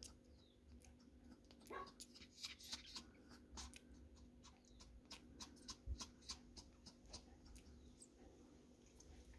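Faint, brief squeaks from a newborn Pomeranian puppy, one short rising squeak about two seconds in, amid many soft clicks and taps.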